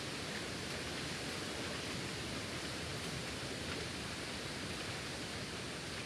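Steady, even hiss of background noise with no distinct calls or knocks.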